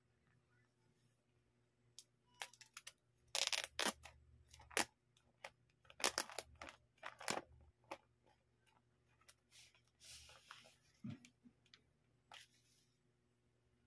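Cardboard tablet box and its paper packaging handled as it is unboxed: irregular bursts of rustling and scraping as the lid comes off and the tablet is lifted out, with a soft low knock near the end.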